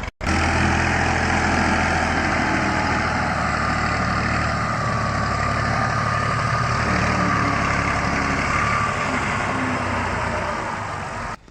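Tractor engine running steadily close by, a low hum under a mid-pitched whine, cutting off just before the end.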